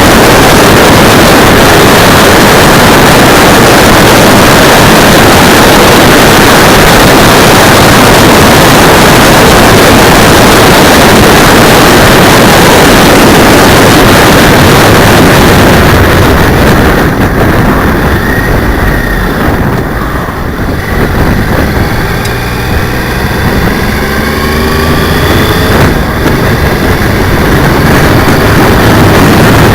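Loud wind rush on the microphone of a cheap keychain camera mounted on a motorcycle's handlebar brake cylinder while riding. A little past halfway the wind noise drops and the motorcycle engine comes through, rising in pitch several times as it accelerates through the gears, before the wind builds back up near the end.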